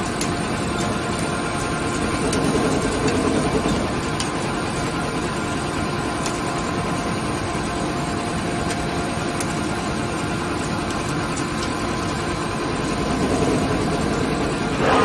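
ALCK6163X1500 CNC lathe running under test, its chuck spinning while it turns a workpiece under coolant: a steady machine hum with a few steady tones and faint occasional ticks.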